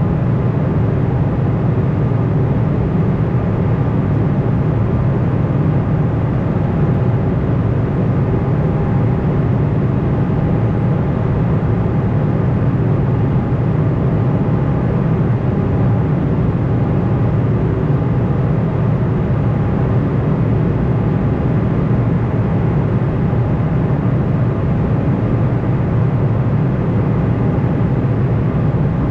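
Steady cabin drone of an Embraer E190 airliner in cruise, heard from inside the cabin by the wing: a loud, even rush of airflow and engine noise, strongest low down, with faint steady tones over it.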